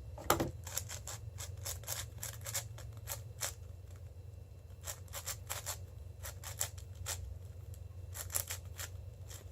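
A 6x6 speed cube, a Cubicle Red M, being turned quickly during a solve: rapid, irregular plastic clicks and clacks of the layers turning, several a second, over a steady low hum.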